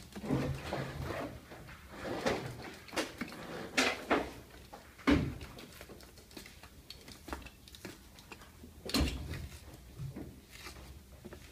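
Handling noise from cutting and working a carpet-lined car trim panel with a utility knife and hands: scraping and rustling broken by a few sharp knocks, the loudest about five seconds in.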